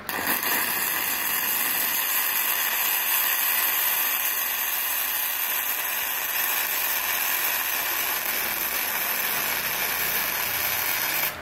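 Gasless MIG welding arc from a MultiPro MIG-MMA/TIG 160 AS-MZ inverter welder running a bead on aluminium plate: a steady loud hiss that starts at once and cuts off sharply about eleven seconds in when the trigger is released.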